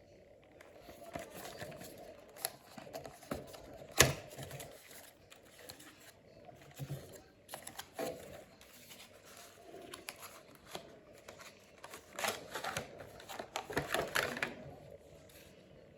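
Typewriter-style mechanical keys of a retro calculator being pressed: irregular clacks, one loud clack about four seconds in and a quick run of key presses near the end.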